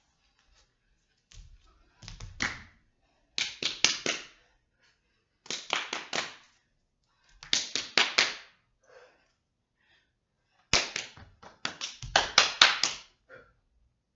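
Sharp slapping strokes from a barefoot dancer's body percussion, coming in quick bursts of three to six with short silences between, about seven bursts in all.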